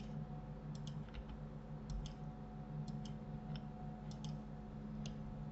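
Faint clicks of a computer mouse and keyboard, about a dozen, several in quick pairs, over a steady low hum.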